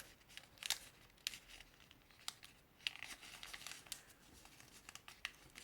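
Faint crackling and rustling of folded colour paper being handled, as origami units are slid into each other's folds, with scattered sharp crisp clicks.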